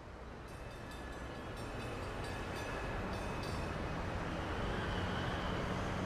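Electric streetcar rolling on its rails, a steady rumble and hum that grows louder as it approaches, with faint high squealing tones from the wheels.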